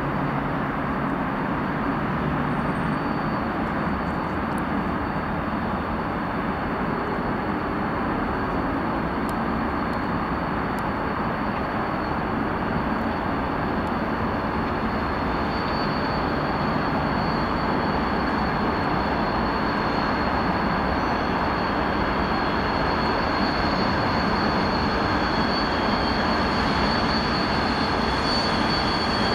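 Train running past on the rails: a steady, even rumble that does not fade for the whole stretch, with a thin steady high-pitched tone over it that grows stronger about halfway through.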